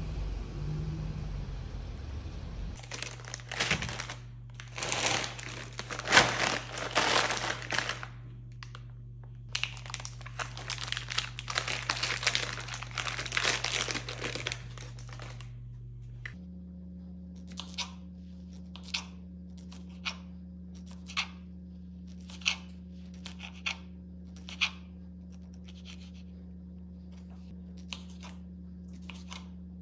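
Plastic sausage packaging crinkling and tearing as it is pulled open. About halfway through it gives way to a knife slicing through sausages, each cut ending in a sharp tap on the cutting board about once a second, over a steady low hum.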